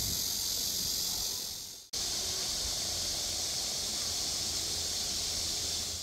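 A steady, high-pitched chorus of summer insects in the trees. It drops out for a moment about two seconds in, then carries on, over a faint low rumble.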